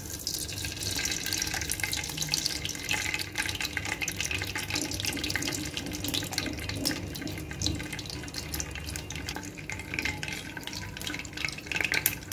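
Melted ghee poured in a thin stream into a nonstick pot, a steady liquid trickle with many small crackles.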